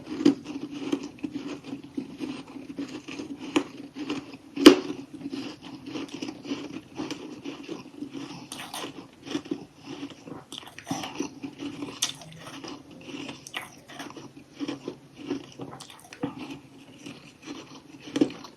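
Close-up chewing of crunchy humidifier freezer-frost chunks: many crisp, irregular crunches and bites, with the loudest crunch about four and a half seconds in, over a faint steady low hum.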